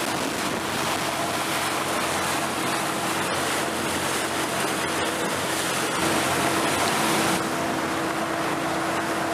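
Boat under way at speed: a steady rush of wake water and wind buffeting the microphone, with a thin steady hum underneath.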